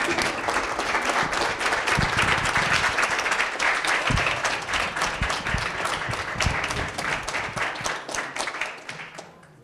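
A roomful of people applauding, many hands clapping at once; it starts all together and dies away near the end.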